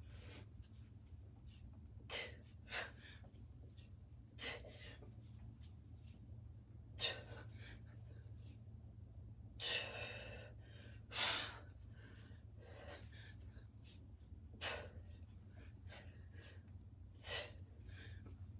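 A person's short, sharp breaths, about ten of them one to three seconds apart, breathing hard in time with repeated kettlebell snatches, over a faint steady low hum.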